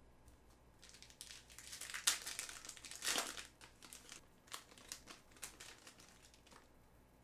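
Foil trading-card pack wrapper crinkling as it is opened and the cards are pulled out. It is loudest about two and three seconds in, then thins to scattered crinkles.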